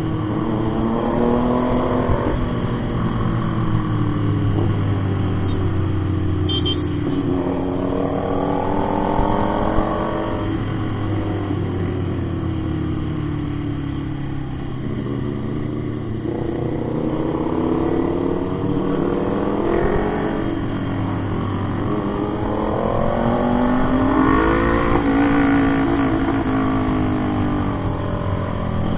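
Motorcycle engine under way, its pitch climbing as it accelerates and then dropping again, several times over: rising strongly about a second in, around eight to ten seconds in, and again near the end.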